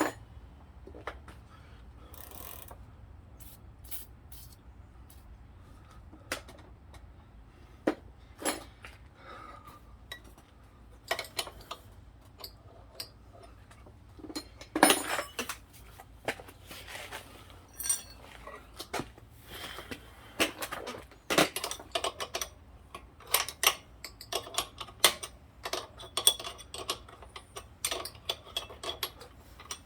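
Irregular metallic clinks, clicks and knocks of hand tools and a pedal spindle being worked against an e-bike crank arm, at first sparse and busier from about halfway on. The crank arm's pedal threads are galled and clogged with metal.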